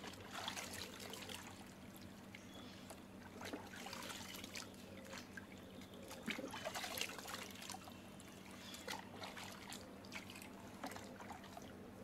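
Bathwater splashing and dribbling in a plastic tub as a baby chimpanzee is washed by hand: many small, faint splashes.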